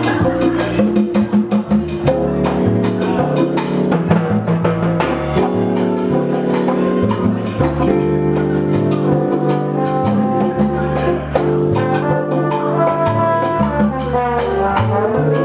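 A small live band playing: trombone and flute carry the melody over a plucked upright double bass, congas and an electric keyboard.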